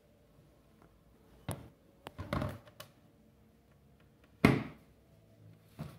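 A JBL Club 1024 10-inch car subwoofer is turned over and handled on a metal tabletop. A few light knocks and a short scrape come first, then one sharp thunk about four and a half seconds in, and a smaller knock near the end.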